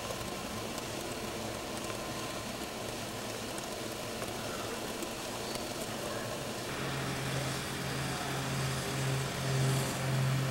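Alco steam locomotive standing under steam: a steady hiss of escaping steam. About two-thirds of the way through, a low throbbing comes in that pulses about once or twice a second and grows louder.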